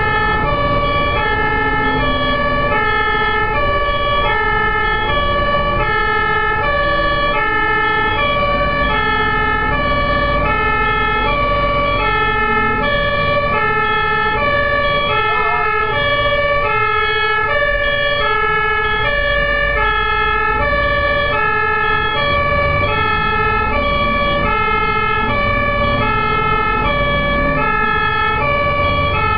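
German fire engine's two-tone siren sounding continuously, jumping evenly back and forth between a high and a low note, each held for well under a second. The truck's engine and road rumble run underneath.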